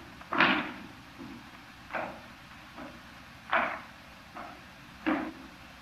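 Four short knocks, evenly spaced about a second and a half apart.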